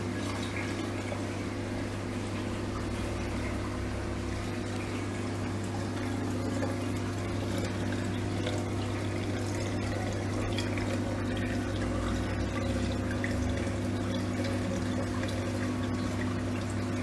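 Reef aquarium coral tank's water circulation: water pouring and trickling steadily over a constant low pump hum.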